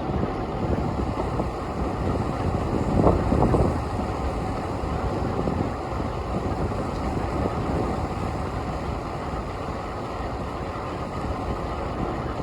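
Wind rushing and buffeting over the microphone of a camera riding along on a moving bicycle, with city street traffic rumbling underneath; the rush swells briefly about three seconds in.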